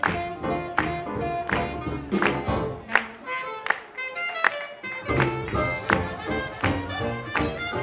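Live swing jazz band playing an up-tempo tune, with guitar, double bass and drums, a sharp accent about every three-quarters of a second. The bass and low end drop out for a moment about halfway through, then the full band comes back in.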